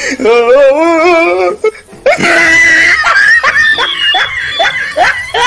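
Loud laughter: a high, warbling laugh for the first second and a half, then after a short break a run of quick ha-ha bursts, each falling in pitch.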